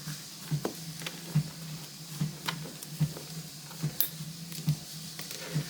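Handling sounds of a leather planner cover: scattered light taps, clicks and scrapes as a pen is pushed into its pen loop. Under them runs a low hum that pulses evenly about every 0.8 s.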